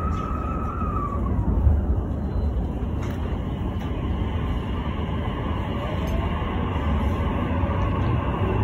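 Electric commuter train heard from inside the carriage: a steady low rumble, then the whine of its electric motors rising in pitch over the last two seconds as it pulls away from the station. A brief high tone slides down and fades about a second in.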